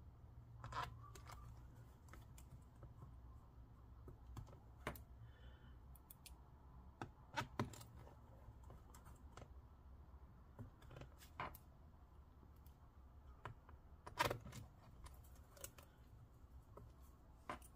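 Small screws and a precision screwdriver clicking and tapping against a laptop's bottom panel as the screws are driven back in: faint, scattered sharp clicks a second or several apart, over a low steady hum.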